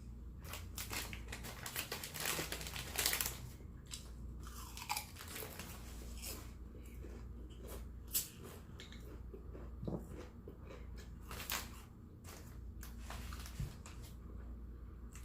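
A person eating close to the microphone: crunchy bites and chewing, with sharp crunches now and then, the loudest about three and eight seconds in.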